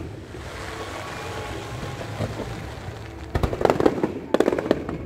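Fireworks going off: a steady hiss, then a little over three seconds in, a quick run of sharp bangs and crackles.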